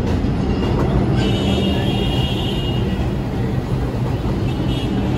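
R142 subway train running through the station: a steady loud rumble with a high-pitched whine that comes and goes.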